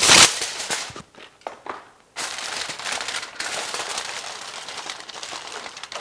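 Aluminum foil rustling loudly as a sheet is pulled from its box, then, after a short pause, a steady crinkling as the foil is pressed and crimped around the rim of a cake pan.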